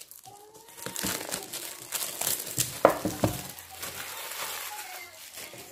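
Cellophane shrink-wrap being torn and crumpled off a cardboard box: a run of dense crinkling and crackling, with one sharp snap about three seconds in.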